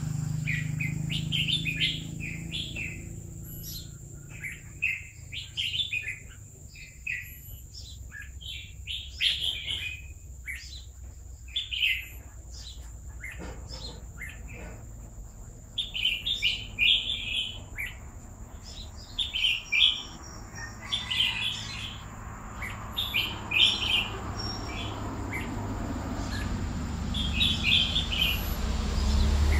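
Red-whiskered bulbul singing: short bursts of chirpy, warbled phrases every second or two, with brief pauses between them. A low background rumble sits under the song at the start and again near the end.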